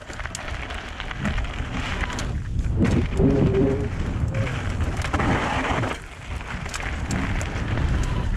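Wind buffeting the camera microphone over the rumble and crunch of a Focus Jam mountain bike's tyres rolling fast on a gravel trail, with scattered clicks and rattles from the bike and loose stones.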